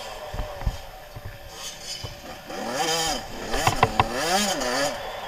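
Suzuki RM 85 two-stroke motocross engine under way, quieter at first, then revving up and down twice from about halfway through. Several sharp knocks break in along the way.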